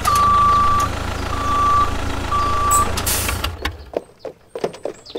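A vehicle's reversing alarm beeps three times at a steady pitch, about one beep a second, over a low engine rumble. A short hiss follows the last beep, then the rumble stops and a few scattered knocks are heard.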